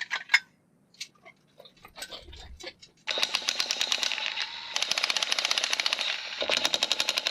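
Hand ratchet clicking rapidly and steadily as bolts are wound out, starting about three seconds in after a few scattered clicks and knocks of tools.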